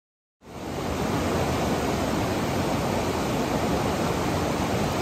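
Fast mountain stream running high, its white water rushing over rocks in a steady, loud rush that starts suddenly about half a second in after silence.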